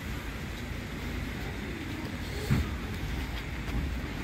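Steady rumble of street traffic, with a brief thump about two and a half seconds in.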